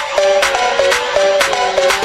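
Background music with a steady beat and a melodic line of held notes.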